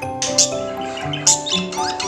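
Background music with held melodic notes, with about three short, high bird chirps over it.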